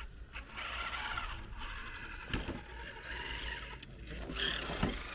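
1/10-scale RC crawlers' electric motors and geared drivetrains whining, the pitch wavering up and down as the trucks creep over rocks, with a couple of sharp knocks of tyres or chassis on stone. The sound breaks off briefly a few times.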